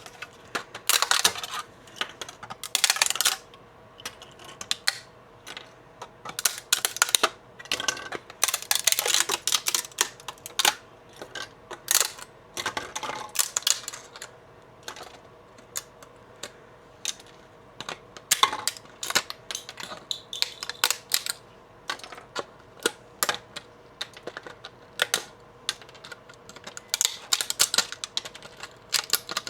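Support material being snapped and peeled off a freshly 3D-printed plastic mount: irregular clicks, cracks and scraping in quick clusters.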